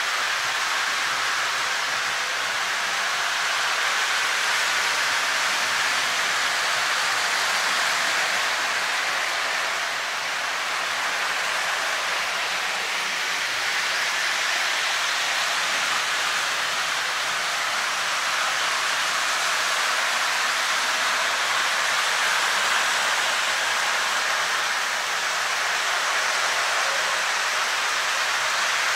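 A steady, even rushing hiss that holds at one level, with no clicks, knocks or rhythm in it.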